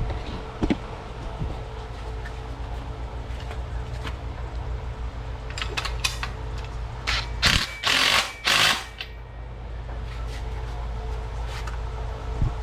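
Bolts on a steel power rack being run down: rapid mechanical rattling and scattered clicks of tool work. Three loud, short bursts of noise come a little past halfway.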